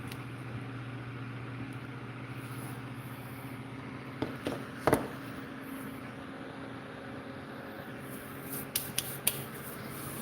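Steady low background hum, with a couple of light knocks about halfway through and a few quick clicks near the end.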